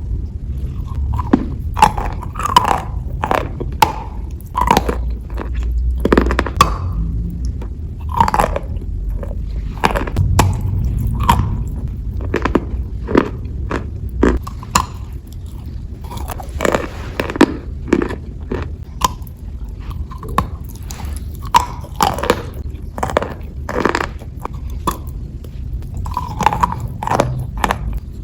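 Close-miked biting and chewing of chalk pieces: irregular crisp crunches, about one or two a second, with scraping between bites.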